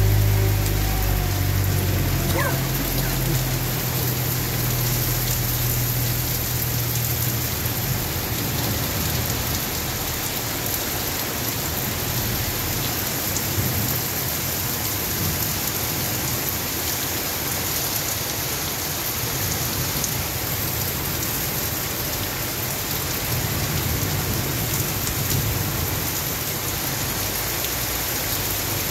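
Heavy rain pouring onto a paved street and pavement, a steady dense hiss throughout. A low rumble underneath fades out in the first few seconds.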